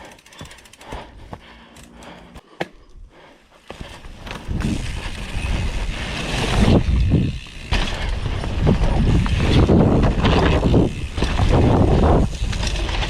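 Scott Voltage FR710 mountain bike riding down a dirt trail, heard from a helmet-mounted camera. A few light clicks and rattles come first, then about four seconds in a loud, uneven rumble of tyres, trail and rushing air that rises and falls with the terrain.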